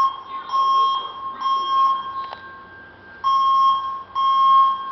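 Building fire alarm sounding its evacuation signal: a loud, steady-pitched electronic beep repeated in groups of three with a pause of about a second between groups, the temporal-three fire-evacuation pattern.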